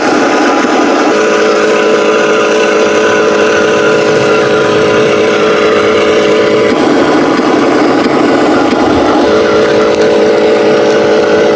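Huina 1501 RC Scania 770S logging truck running with a steady, loud engine-like drone. It switches back and forth between a rougher sound and an even humming tone: about a second in, again near the middle, and once more a couple of seconds later.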